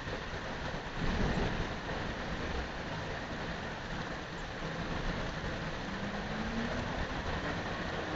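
Storm wind hissing through a tree's leaves and buffeting the microphone as a thunderstorm builds, with a low rumble about a second in. A faint rising hum comes in near the end.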